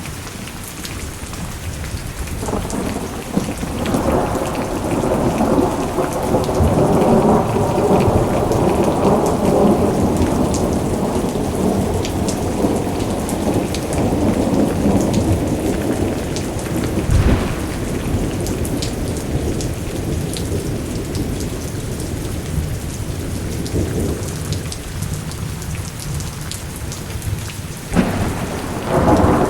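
Steady rain with thunder: a long rolling rumble builds a few seconds in and slowly fades, and a sudden louder clap comes near the end.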